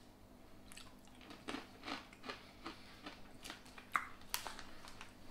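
A person chewing a crunchy coated nut snack: a faint, irregular string of crisp crunches.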